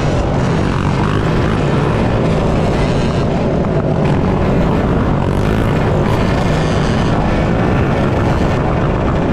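Dirt bike and ATV engines running steadily in a moving group, heard under heavy wind rush on the microphone.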